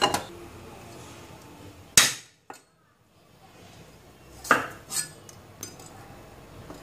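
Cleaver striking a thick round wooden chopping block: a few sharp knocks at irregular intervals.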